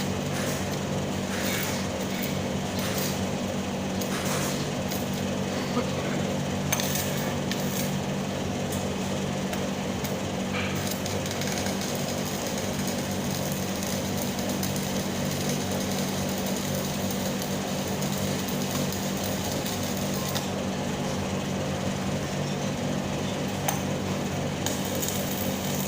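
Stick welding arc crackling steadily over a low electrical hum, with a few sharper pops.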